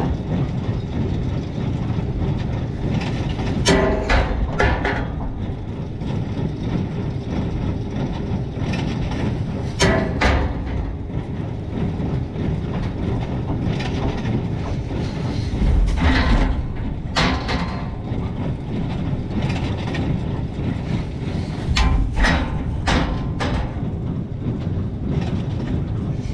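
Farm machinery engine running steadily under a low rumble, with sharp metallic clanks coming irregularly every few seconds.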